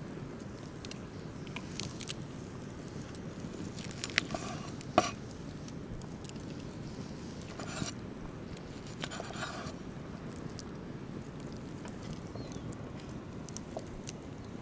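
A large broad-bladed knife slicing raw ostrich heart on a wooden cutting board: a few wet slicing strokes and sharp taps of the blade on the board, the sharpest about five seconds in, over a steady low background noise.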